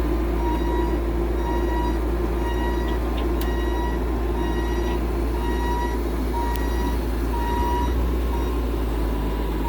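Vehicle reversing alarm beeping in a steady, evenly spaced series over a running engine's low rumble.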